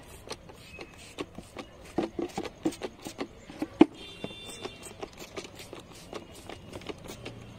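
Plastic trigger spray bottle of alcohol being squeezed, a run of irregular sharp clicks several times a second.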